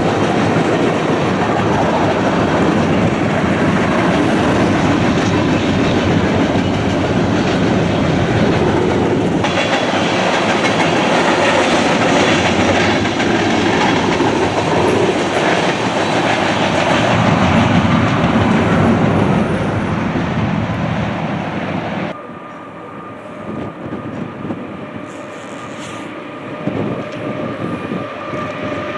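Freight train of covered hopper cars rolling past close by: a loud, steady rolling noise of steel wheels on rail. About 22 seconds in it cuts off abruptly to a quieter, more distant train with a few faint steady tones.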